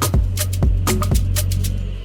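Background music with a steady percussive beat over a low bass line, dropping away at the very end.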